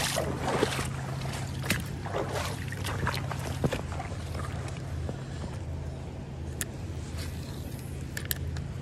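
Footsteps and brushing through weeds and leaves on a creek bank, loudest in the first few seconds, over a steady low hum. A few sharp clicks come near the end.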